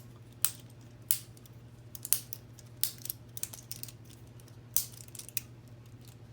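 K'nex plastic rods and connectors clicking and snapping as support arms are pulled off a model and handled, about a dozen sharp irregular clicks, over a steady low hum.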